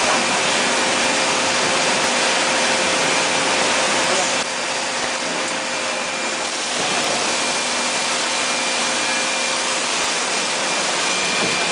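Steady hissing rush of a radiator brass tank soldering machine and its gas torch flames, with a faint steady hum; the noise shifts and drops a little about four seconds in.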